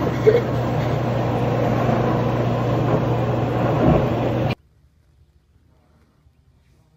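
Steady mechanical hum with an even rushing hiss, which cuts off suddenly about four and a half seconds in, leaving near silence.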